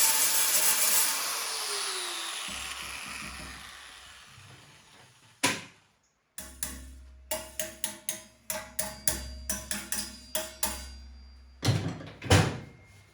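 Power-tool wire wheel winding down after being switched off, its whine falling in pitch as the noise fades. After an abrupt cut about six seconds in, music with plucked, percussive notes over a steady bass.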